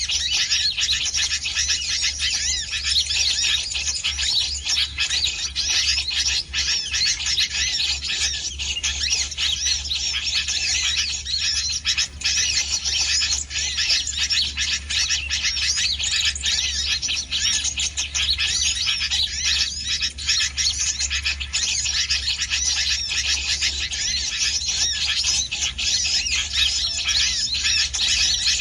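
Many small birds chirping densely and without a break, with a steady low hum underneath.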